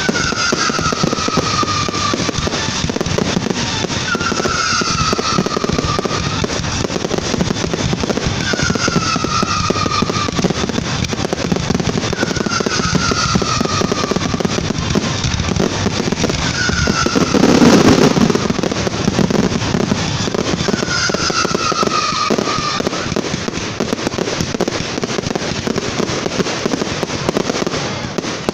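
Closing barrage of a fireworks display: many shells bursting at once in a continuous dense crackling and banging, with one louder boom a little past the middle. Over it a falling tone sounds about every four seconds, and the barrage begins to thin out near the end.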